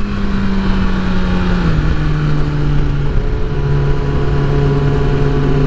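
2009 Kawasaki ZX-6R's inline-four engine running steadily under a constant rush of wind, heard from the rider's seat. Its pitch drops a step about two seconds in and then holds lower.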